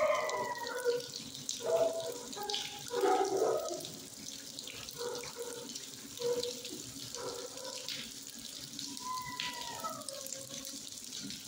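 Steady rush of water, with short, faint pitched sounds scattered over it, more of them and louder in the first few seconds.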